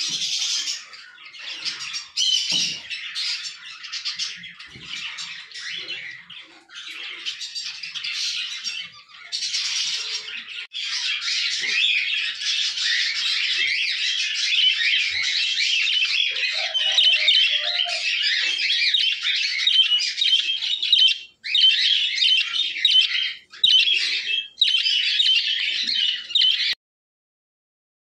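Budgerigars chattering continuously with fast, high chirps and squawks, stopping abruptly near the end.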